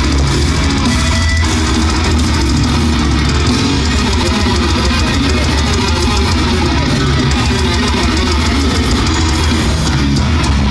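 A death metal band playing live through a venue PA: electric guitars and a drum kit, loud and continuous with fast, dense drumming.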